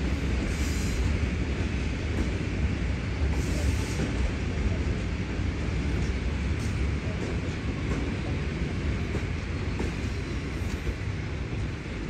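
ED4M electric multiple unit approaching along the station tracks: a steady low rumble.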